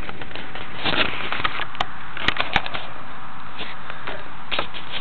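Handling noise on a small onboard camera's microphone: irregular crackling rubs and several sharp clicks over a steady hiss, as fingers grip the camera.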